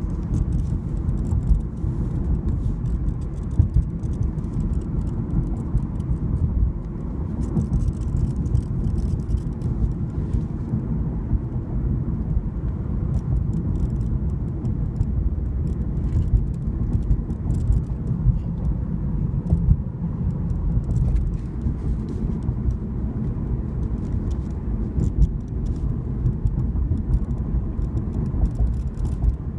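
A 2014 Lexus IS250 on the move with a steady low rumble, and an annoying rattle that comes through as irregular small clicks throughout.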